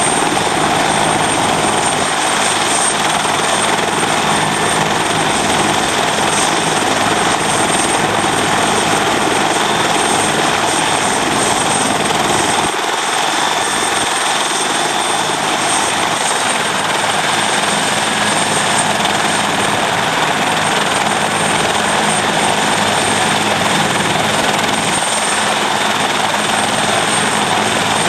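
Rescue helicopter running on the ground with its rotors turning, a steady engine and rotor noise with a thin, high, constant whistle.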